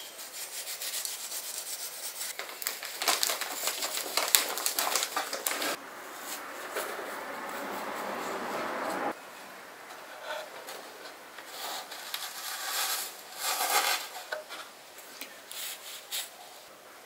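Dry, scratchy rubbing and scraping of rockwool propagation cubes as a wooden skewer is bored into them to make planting holes. There is dense rapid scratching at first, then a steady scrape for about three seconds that stops abruptly, then scattered short scratches.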